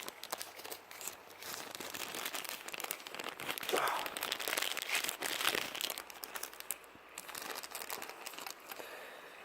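A bag being rummaged through by hand: a rustle of many small crackles that grows louder in the middle.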